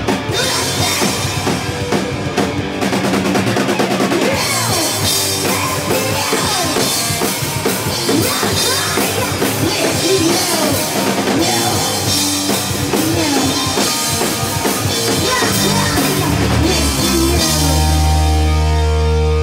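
Live heavy rock band at full volume: a drum kit pounding with crashing cymbals under distorted electric guitar and bass. Near the end the drums and cymbals stop and a low chord is left ringing out.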